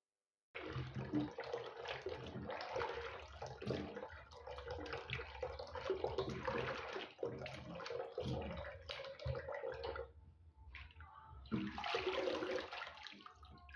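Hands swishing and squeezing leafy greens in a steel pot of water, water sloshing and splashing against the pot. The sloshing drops off about ten seconds in, then comes back in one more short burst near the end.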